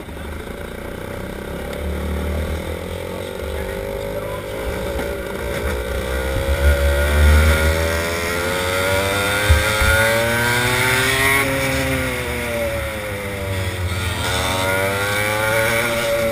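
Go-kart engine heard from onboard, running low as the kart pulls out of the pits, then revving up and down as it accelerates and lifts for corners. A single sharp knock comes about halfway through.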